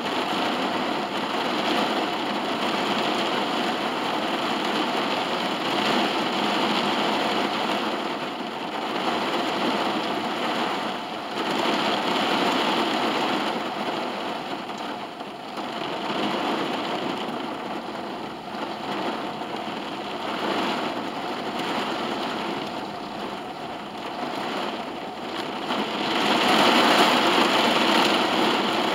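Heavy rain falling on a car's roof and windows, heard from inside the cabin: a steady patter that swells and eases in waves and is loudest near the end.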